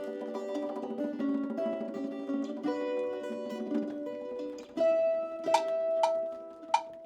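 A plucked string instrument playing a short melody of ringing notes. From about five seconds in, sharp percussive strokes come roughly twice a second over a held note.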